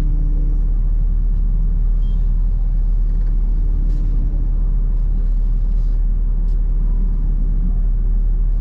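Steady low rumble inside a car: engine and road noise while driving slowly.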